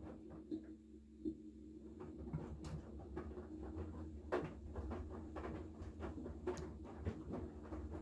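Haier I-Pro Series 7 front-loading washing machine tumbling wet laundry in its wash phase: a steady motor hum with irregular splashing and soft thuds of clothes dropping in the drum. The tumbling eases off briefly about a second in, then picks up again.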